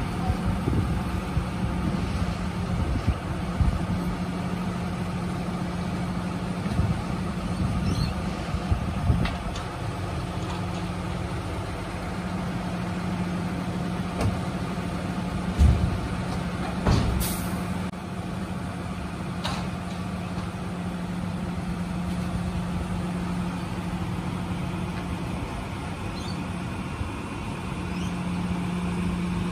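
Tilt-tray tow truck's engine running steadily while the car comes off the tray, with scattered knocks and clunks, the loudest about 17 seconds in.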